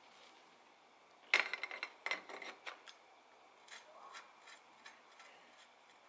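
Light metallic clicks and taps from a bicycle's front caliper brake being handled and adjusted against the wheel rim, with a quick run of clicks and knocks about a second and a half in, then scattered single clicks.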